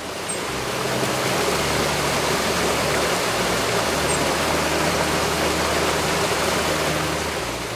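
Water pouring over a mill sluice into a churning pool: a steady, dense rush of falling water.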